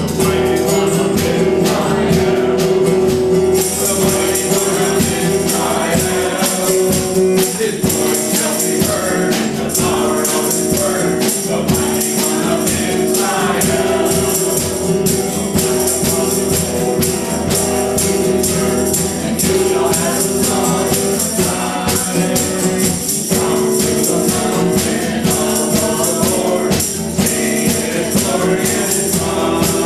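Live gospel worship music: a small group of voices singing together, accompanied by guitar and a drum kit.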